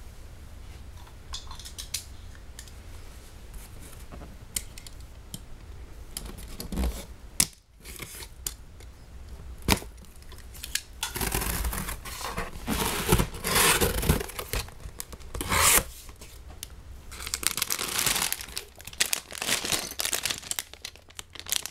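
A cardboard LEGO set box being opened by hand: scattered taps and clicks, then bursts of tearing in the middle, followed by rustling and crinkling of plastic bags of LEGO pieces near the end.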